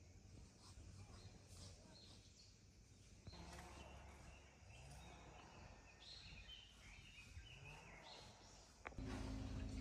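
Faint woodland ambience, with small birds chirping faintly from a few seconds in. A louder, steady low hum starts near the end.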